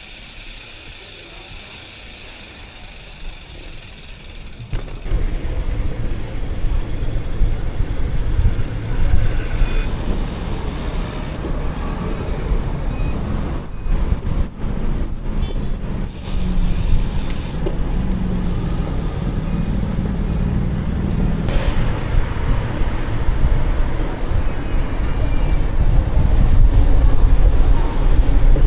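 Road traffic noise with a heavy low rumble. It comes in suddenly about five seconds in after a quieter start and stays loud.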